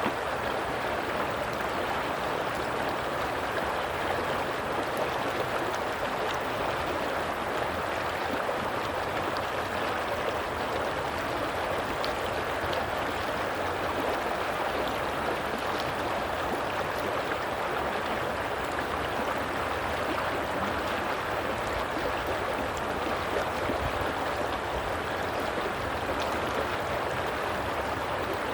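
Stream of water flowing and gurgling steadily, an even rushing sound with small splashes here and there.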